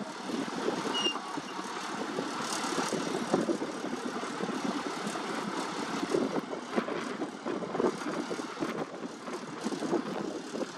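Long-boom excavator running, its engine and hydraulics working as the boom moves its vibratory pile hammer; a steady mechanical noise whose loudness rises and falls unevenly.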